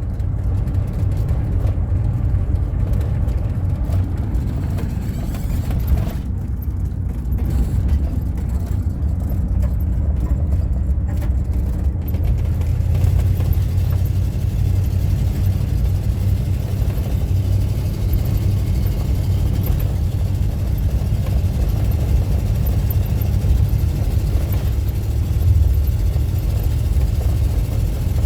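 Car driving at road speed: a steady low rumble of tyre, road and engine noise as heard from inside the cabin.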